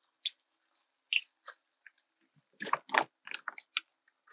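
Plastic zip-top bag crinkling and rustling in short crackles as strips of meat are pulled from it with tongs, with a denser flurry of crinkling about two and a half seconds in.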